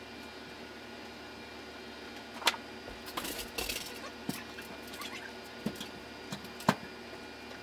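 Scattered knocks and clatter of household items being handled and moved, with a brief rustling scrape about three seconds in and sharp knocks near the start and end, over a faint steady hum.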